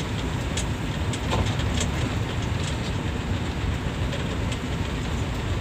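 Bus on the move: a steady low rumble of engine and road noise, with scattered light clicks and rattles.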